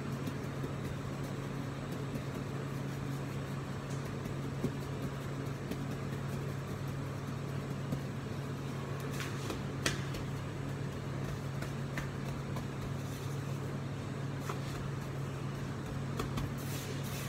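Steady low mechanical hum of kitchen machinery, with a few faint taps as pizza dough is pressed out by hand on the counter.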